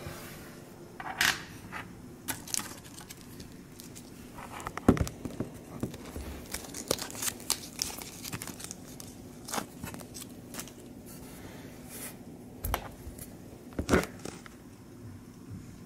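Plastic sleeve crinkling in the hands while metal geocoins are handled, with scattered clicks and two sharper knocks of coins set down on a tabletop, about five seconds in and near the end.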